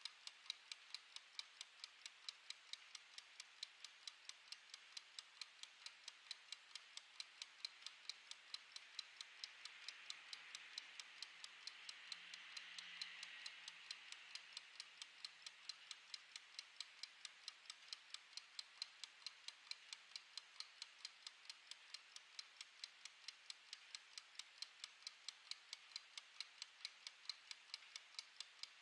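Mechanical wind-up kitchen timer ticking steadily as its clockwork counts down, about three even ticks a second.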